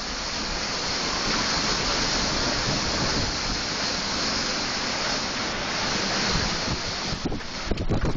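Storm wind of around 90 mph rushing steadily. Gusts buffet the microphone with rumbles, and near the end the noise breaks up into ragged thumps.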